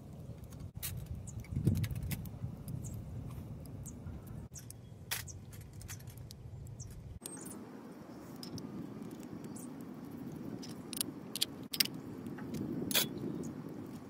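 Camp cooking sounds: scattered metallic clinks and taps as a hot sandwich maker and other metal cookware are handled over a campfire grill, over a low steady outdoor background noise.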